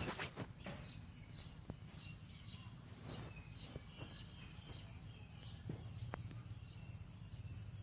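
A bird chirping over and over in short, sharp, falling notes about twice a second, faint over a steady low rumble, with a few soft clicks.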